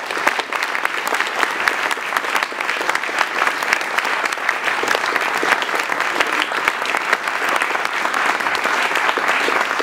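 An audience applauding steadily with many hands clapping, greeting the announced prize winner.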